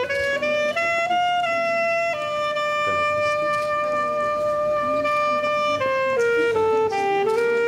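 A slow solo melody on a single wind instrument. A few notes step upward, one long note is held, then the line steps down to another held note near the end.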